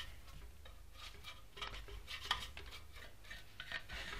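Light, scattered clicks and clinks of small metal parts being handled and set down, the sharpest one about two seconds in.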